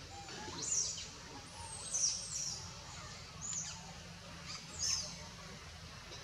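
High-pitched animal chirps: four short, sweeping calls about a second and a half apart, over a steady low background rumble.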